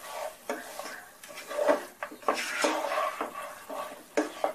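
Wooden spatula stirring chicken bone pieces through a thick masala in a non-stick pan, scraping and knocking against the pan at irregular intervals, about five louder knocks.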